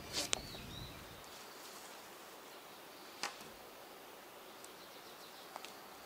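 A drawknife stroke shaving bark off a log, a brief scrape ending in a sharp click. It is followed by quiet outdoor background with one more short scrape about three seconds in.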